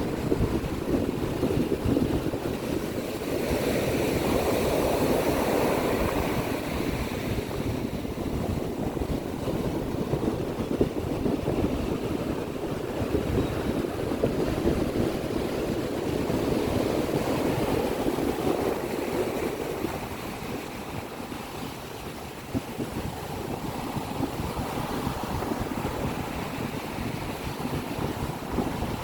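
Sea waves washing onto a beach, a continuous surf that swells and eases as the waves come in, loudest twice and quieter near the end.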